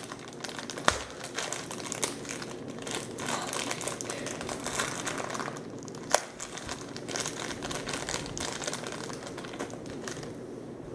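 Thin clear plastic bag crinkling and crackling as hands unwrap a small figure from it, with a few sharp clicks.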